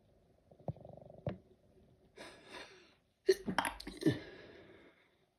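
A person sneezing in an allergy sneezing fit: a sharp intake of breath about two seconds in, then a loud sneeze a little after three seconds that tails off over about a second and a half.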